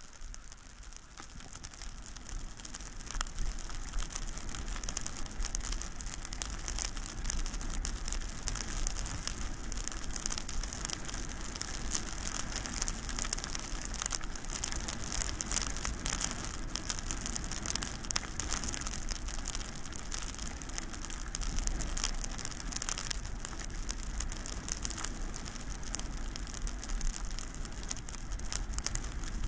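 Skiing or snowboarding at speed down a snowy slope: the edges scraping and crackling over the snow, with wind rumbling on the helmet-camera microphone. It grows louder over the first few seconds as the rider picks up speed.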